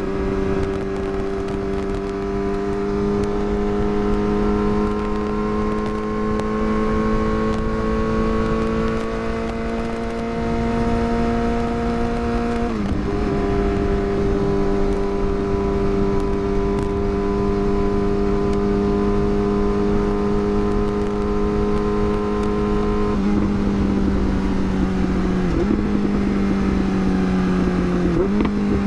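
Yamaha R6's inline-four engine under way, revs climbing slowly and then dropping sharply at an upshift about halfway through. The bike then cruises at steady revs, with a few quick dips in engine pitch near the end, over a low rush of wind noise.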